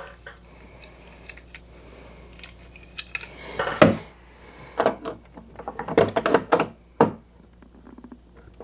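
Metal clicks and clanks of slip-joint pliers working the pin of a Jeep XJ door check stop into the door hinge. The sharpest knock comes about four seconds in, followed by a quick run of knocks around six seconds.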